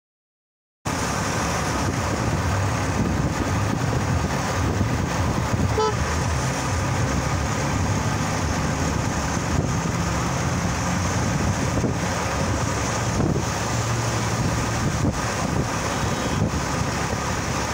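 Traffic and road noise heard from a moving vehicle, steady and rumbling, with a brief horn toot about six seconds in.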